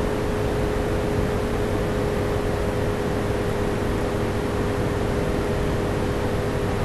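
Steady background noise: an even hiss with a constant hum, unchanging throughout.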